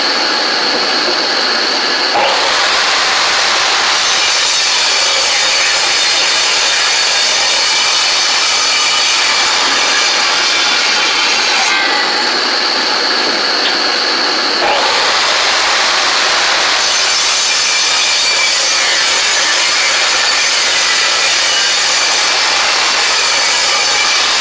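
Table saw running with its blade ripping a cedar board: the noise rises and brightens as the blade enters the wood about two seconds in, eases back to the motor running free just before the halfway point, then cuts again from a little past the middle to the end.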